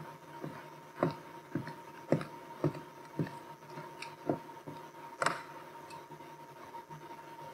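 Footsteps on a hardwood gym floor, about two steps a second, then a single sharper knock a little after five seconds in. A faint steady tone hums underneath.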